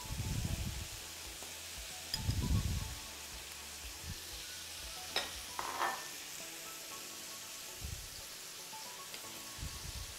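Metal spoon scooping sautéed zucchini slices and clicking against the dish twice about five to six seconds in, with soft low thumps of food being set down near the start and a steady faint hiss underneath.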